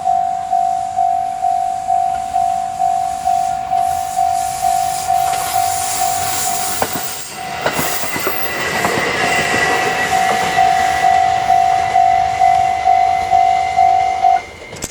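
Japanese railway level-crossing warning bell ringing about twice a second while a train passes over the crossing. The train's running and wheel noise swells from about a third of the way in, with a few sharp wheel clicks and a thin steady high whine. The bell stops shortly before the end.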